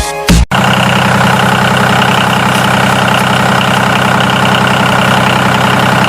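Engine idling steadily, starting about half a second in after a brief break.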